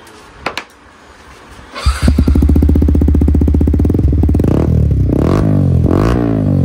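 Yamaha MT15's single-cylinder engine starts about two seconds in and idles through a Yoshimura USA carbon-look slip-on silencer held by hand over the exhaust outlet, then is blipped three times, the pitch rising and falling with each rev.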